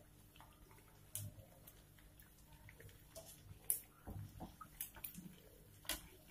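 Sabudana vadas frying in oil on a low flame: a faint sizzle, with a few sharp clicks and taps from a slotted metal spoon turning them in the metal kadhai.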